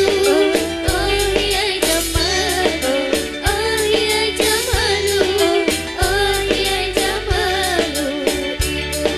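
A woman singing a melody into a microphone with a live band: hand drums beating a steady rhythm under keyboard and bass.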